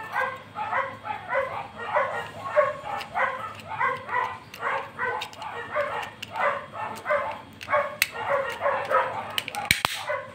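A dog yapping over and over, about three short yaps a second. A few sharp clicks near the end.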